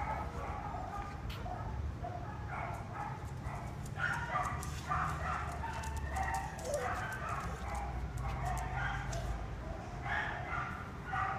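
Dogs barking and yelping in a kennel, many short calls repeated one after another, over a low rumble.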